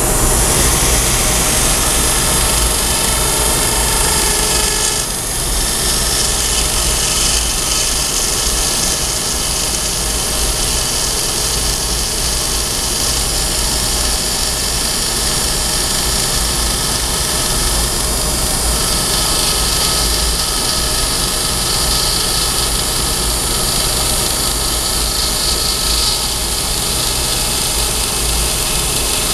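Dental handpiece running at steady speed with a high whine and hiss, its Osstem LAS sinus-lift drill grinding through eggshell to expose the membrane beneath. The sound drops slightly about five seconds in, then carries on evenly.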